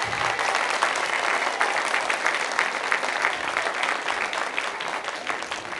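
Audience applauding: dense clapping from a crowd, easing off slightly toward the end.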